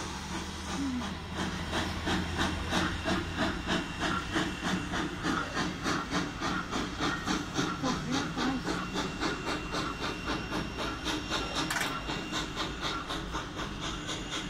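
Steam locomotive working past, its exhaust chuffing in a steady rhythm of about two and a half beats a second, with a low rumble underneath in the first few seconds.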